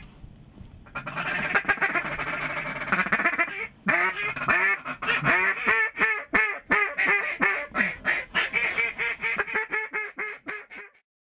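Duck quacking: a fast run of chatter, then a long series of loud quacks, about three a second, each falling in pitch, which slows and fades out near the end.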